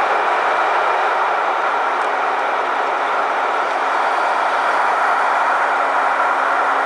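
Airliner cabin noise at a window seat over the wing of an Airbus A330-300: a steady, loud rush of airflow and Rolls-Royce Trent 700 engine noise in flight. A faint steady hum joins in about two seconds in.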